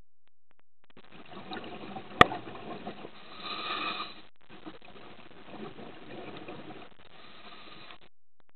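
Scuba diver's breathing through a regulator: a long rushing burble of exhaled bubbles, briefly breaking off midway and then running on again. One sharp click about two seconds in.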